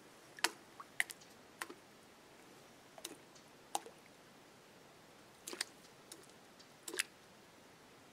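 Scattered sharp clicks and light knocks, about a dozen at uneven intervals, from small movements of a hunter in a metal climbing tree stand.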